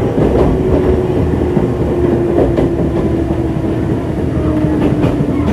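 Running sound inside a 205-series electric commuter train's motor car with inner-fan traction motors: a steady motor whine falling slowly in pitch as the train slows, over the rumble of the wheels. A few sharp clicks from the wheels on the rails come through it.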